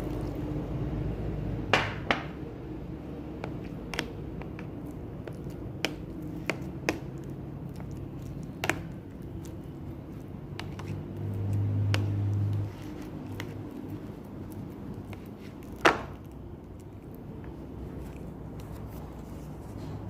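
Scattered, irregular knocks and clicks of kitchen utensils during food preparation, a dozen or so sharp taps with the loudest about two seconds in and near the end. A low hum swells briefly about halfway through.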